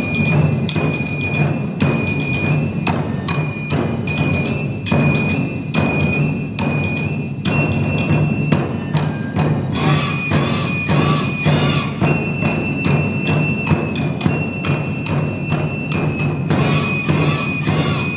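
Japanese taiko ensemble: barrel-shaped chu-daiko drums struck with wooden bachi sticks in fast, dense rhythms, many strokes a second. A high held tone that steps up and down in pitch a few times sounds over the drumming.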